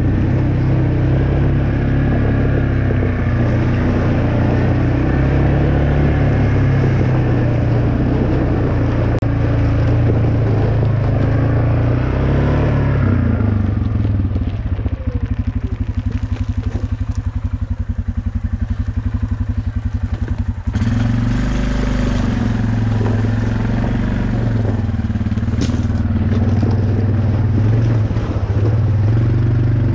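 Off-road vehicle's engine running on a trail, its pitch rising and falling. For several seconds past the middle it settles to an even idle, then picks up again abruptly.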